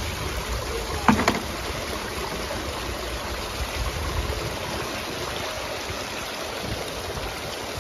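Steady rush of running water from a street water feature, with a brief sharp sound about a second in.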